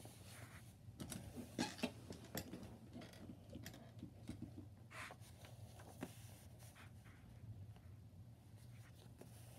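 Faint rustling and crackling of a folded glossy paper flyer being unfolded and flattened by hand, most of it in a cluster about a second in and a couple more crackles around five and six seconds in, over a low steady hum.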